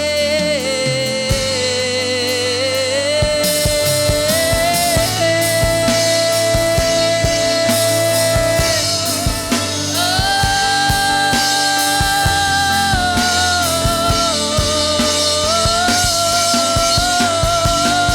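Gospel worship music: a singer holds long, drawn-out notes over a steady band backing, with drums coming in about a second in.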